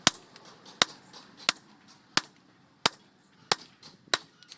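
Hammer striking metal in a steady rhythm, seven sharp ringing blows about one and a half a second, as in blacksmith work on an axe head.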